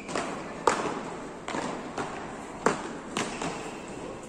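Beach tennis paddles striking the ball in a fast rally: about six sharp hits in four seconds, two of them louder than the rest, echoing in a large indoor hall.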